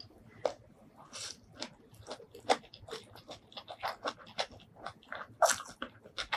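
Close-miked mouth sounds of eating a spicy Thai rice noodle salad: chewing, heard as a dense, irregular run of sharp clicks that begins about half a second in.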